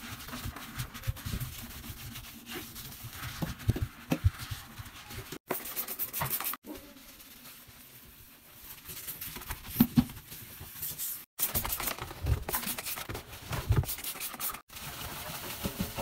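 Sponge and cloth scrubbing and wiping a front-loading washing machine's rubber door seal, glass door and steel drum: irregular rubbing with a few light knocks, broken off abruptly several times.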